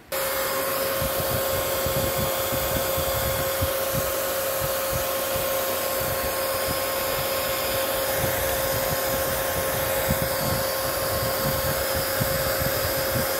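A 12 V turbo blower cooling fan running at full speed, a steady rush of air with a steady whine.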